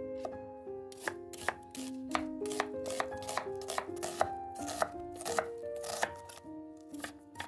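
Chef's knife slicing a raw onion into rings on a wooden cutting board: crisp knocks of the blade on the board about three times a second, unevenly spaced.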